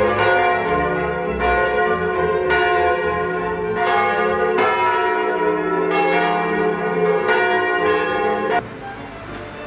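Church bells ringing, a new strike about every second while the earlier ones still hum on, until the ringing cuts off suddenly near the end.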